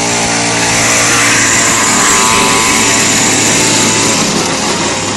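Small engine of a radio-controlled car running hard while towing a go-kart carrying children, swelling louder about two seconds in and then easing slightly.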